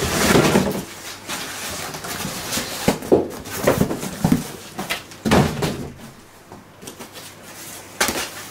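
Cardboard shipping box being handled and opened: a loud scraping rustle of cardboard at the start, then several short knocks and thumps as the flaps are pulled back.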